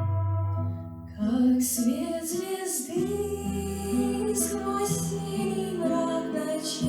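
Music: a slow song, a woman's voice coming in about a second in and singing over steady held instrumental chords.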